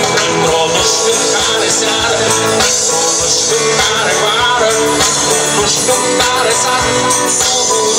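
A live rock band playing on an open-air stage, amplified through the PA: electric guitars over a steady drum beat.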